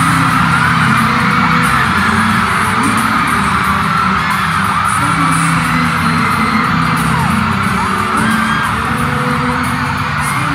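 Music playing loud over an arena's loudspeakers, with a large crowd cheering and screaming over it.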